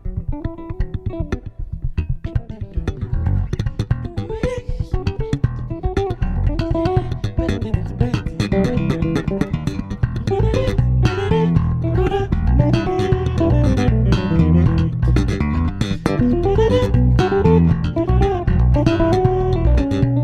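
Two electric bass guitars playing an instrumental duet. A quick plucked melody moves up and down in the upper register over a low bass line, and the playing grows louder about three seconds in and again around ten seconds.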